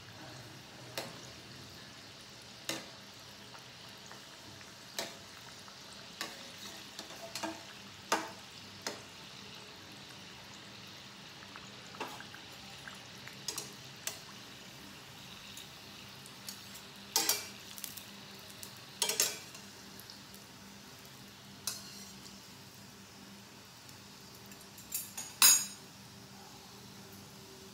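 Maida-dough snacks (papdi and nimki) deep-frying in hot oil in a steel pan, a steady low sizzle. A metal slotted spoon stirs them and knocks against the pan every few seconds, loudest near the end as the fried pieces are scooped out.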